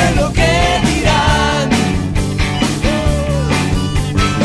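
Rock band recording playing: drums, bass and guitars, with a melody line that slides up and down in pitch over a steady beat.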